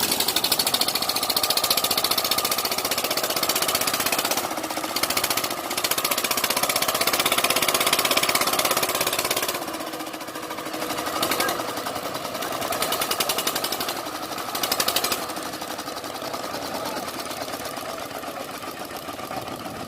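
Heavy diesel engine running close by with a fast, even clatter. It gets somewhat quieter about halfway through, with a couple of brief swells after.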